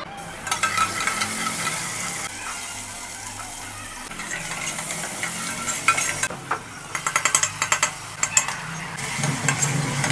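A metal ladle stirring and scraping chopped onions and capsicum as they sizzle in an aluminium pan on a gas flame. In the second half the ladle knocks against the pan in a quick run of clinks.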